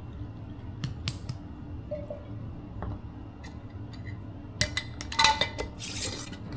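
Lids being put on glass jars of brine-filled pickles: a few light clicks, then, about four and a half seconds in, a quick run of clinks with brief glassy ringing and a scrape as the tops go on.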